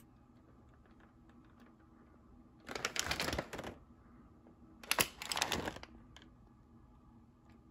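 A cardboard chocolate advent calendar box handled and turned over in the hands: two short bursts of clicking rustle about a second each, with near quiet between.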